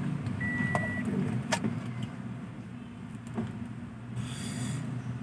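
High electronic car chime beeping in steady half-second tones, stopping about a second in, over a steady low hum inside the car. A few light clicks follow, and a short hiss comes near the end.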